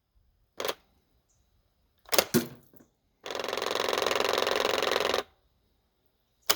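Spyra 2 electric water blaster being fired and cycled: short sharp bursts about half a second in, about two seconds in and near the end, and about two seconds of steady mechanical whirring from around three seconds in.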